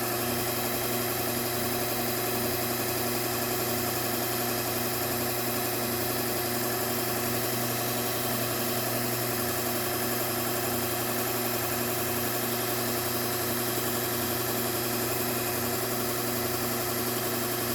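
Bucktool slow-speed belt grinder running steadily, its motor giving an even hum.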